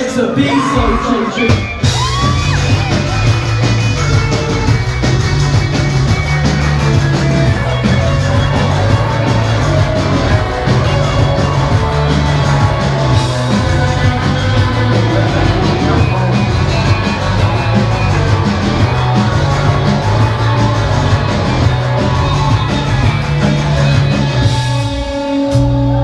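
Loud live rock band playing a fast song with electric guitars, bass, keyboard and sung, shouted vocals. The full band comes in about two seconds in, driven by a heavy repeating bass line, and drops out briefly near the end.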